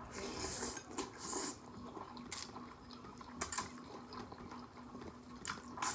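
Wet mouth sounds of someone eating saucy noodles: soft chewing and slurping with a few short sharp smacks.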